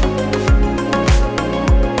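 Background music with a steady kick-drum beat, about two beats a second, over sustained pitched notes.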